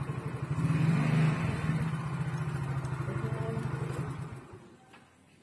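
Motor scooter engine idling with a steady low pulse, briefly louder about a second in, then switched off about four and a half seconds in.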